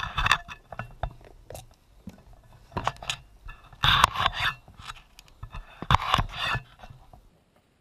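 Kitchen knife cutting a yellow bell pepper on a plastic cutting board: several short cutting strokes with sharp clicks, the loudest about halfway through and again near three-quarters, stopping shortly before the end.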